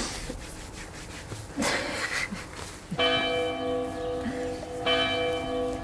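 A church bell strikes twice, about three seconds in and again about two seconds later, each stroke ringing on with a steady hum. Earlier there is a short rustling noise.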